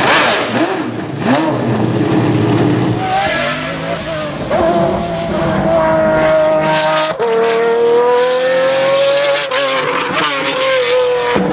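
Group C sports-prototype race car engine at full throttle, its pitch climbing, with a sudden drop about seven seconds in as it shifts up and then climbs again.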